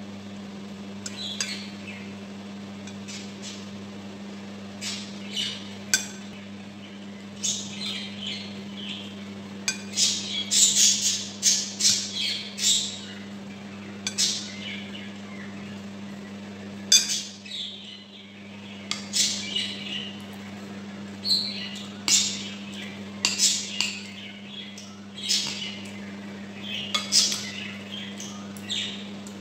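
Eating sounds of a person taking spoonfuls of pork giniling stew: irregular wet chewing, lip smacks and slurps, with now and then a metal spoon clinking on a ceramic bowl. A steady low hum lies underneath.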